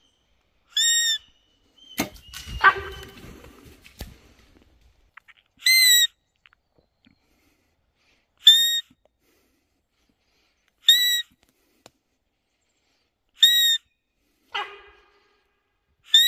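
A hand-held deer call blown in six short, high, whistle-like blasts a few seconds apart, each the same. Between them there is a louder rustling, scraping sound about two seconds in and a shorter one near the end.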